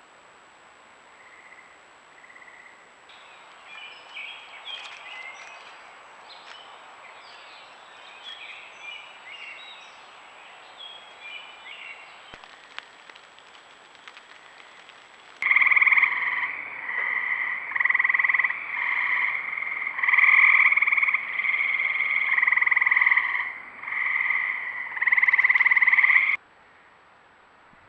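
Frogs calling at night: faint scattered chirps over a light hiss in the first half, then from about halfway a loud run of repeated trills, each a second or two long, that cuts off suddenly near the end.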